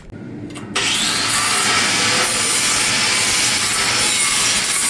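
A power tool starts about a second in and then runs steadily with a loud, continuous cutting noise, as the temporary steel beam structure is cut apart.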